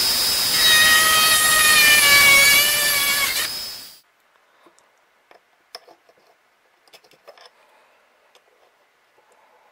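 A high-speed rotary tool with a thin bit whines as it cuts into a bottle cap and its wooden insert, the pitch shifting under load. It cuts off about four seconds in, leaving only faint small clicks and taps.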